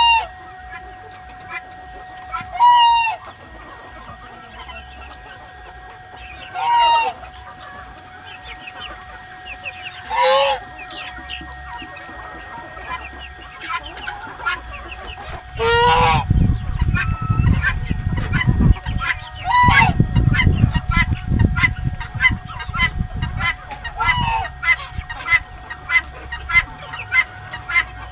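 Mixed poultry flock of geese, chickens and guineafowl calling: loud single calls every few seconds, then from about halfway a fast, even run of short repeated calls, about two a second. A low rumble runs under the calls for several seconds in the middle.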